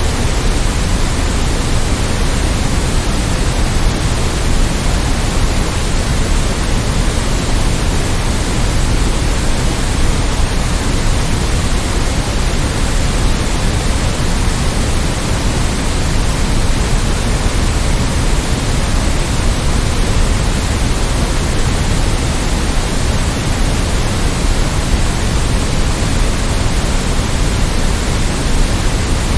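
Steady white noise for sleep: an even, unchanging hiss across all pitches, a little heavier in the low end.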